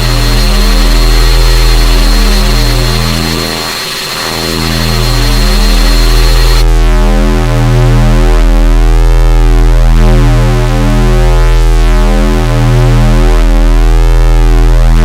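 Loud, distorted synthesized drone: a deep hum under stacked tones that swell and pulse slowly, with a thin high whistle over it that drops out about six and a half seconds in, after which the tones take on a slow sweeping, phasing sound.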